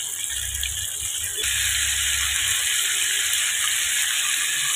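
Flour-coated chicken pieces deep-frying in hot oil: a steady sizzle that gets louder about one and a half seconds in.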